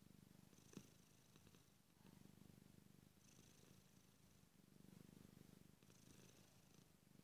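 A domestic cat purring close up, faint but steady. The purr swells and fades with its breathing every two to three seconds, with a soft tick about a second in.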